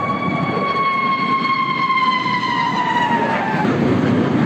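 Sukhoi Su-57 twin-engine fighter jet flying overhead: a loud rumble with a high engine whine that slowly falls in pitch as it passes and fades out about three and a half seconds in, while the rumble runs on.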